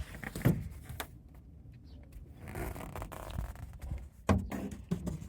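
Handling noises from a thin hardboard cargo-floor board: a couple of light knocks with rubbing and rustling in between.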